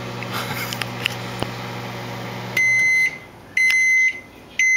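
Microwave oven running with a steady low hum, then shutting off about two and a half seconds in and sounding its loud end-of-cycle beeps: half-second high-pitched tones about once a second, two and the start of a third.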